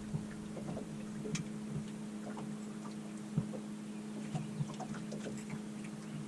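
Steady low hum of the boat's motor with scattered light ticks and clicks of fishing tackle being handled.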